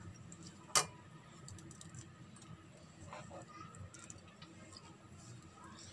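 A metal spoon clicking and scraping faintly against a metal pot as thick kheer is stirred, with one sharper click about a second in.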